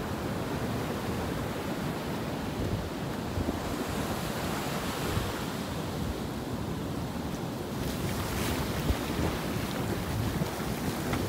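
Ocean surf washing up the sand around beach boulders, with wind rumbling on the microphone. About eight seconds in, a hissing wash of water grows louder.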